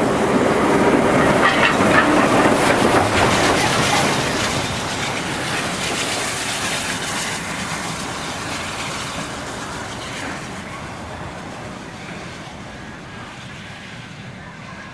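Steam-hauled passenger train running past at speed. The rail noise is loudest in the first few seconds, with a rapid clatter, then fades steadily as the train draws away into the distance.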